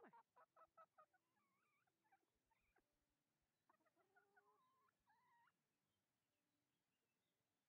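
Faint Silkie chickens clucking: a quick run of short clucks in the first second, then a few longer, wavering calls that stop about two seconds before the end.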